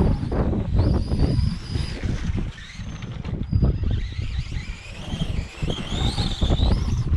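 Brushless electric motor of a Redcat Volcano EPX RC monster truck whining, its pitch rising and falling with the throttle, mixed with knocks from the truck driving. Wind buffets the microphone with a low rumble.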